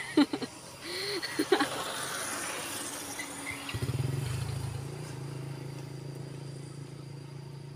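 A small engine starts about halfway through and then runs steadily with a low hum, after a few brief voice sounds.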